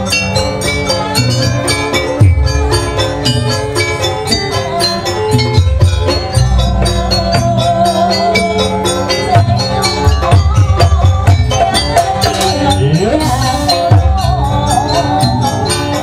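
Live Javanese jaranan ensemble music: drums and clanging percussion keep a fast, steady beat under sustained melodic lines from keyboard and other instruments, with one tone sliding upward about three-quarters of the way through.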